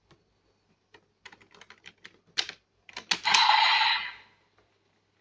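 Hard plastic clicks and rattles from a DX Decade Driver Raise Buckle toy being handled and taken off a DX Desire Driver toy belt. About three seconds in comes a louder noisy burst lasting about a second.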